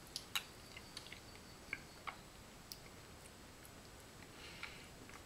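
Faint chewing and small wet mouth clicks of a person eating a spoonful of soft cookie cake, a scattering of irregular little clicks.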